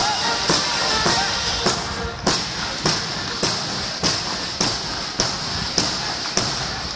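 A column of soldiers' boots striking the road in step, a steady rhythm of sharp thuds a little under two a second.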